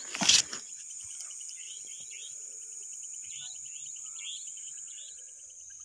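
Night insect chorus: a steady high-pitched cricket trill, with a second insect chirping in a quick repeating pattern a little lower. A short bump just after the start is the loudest sound.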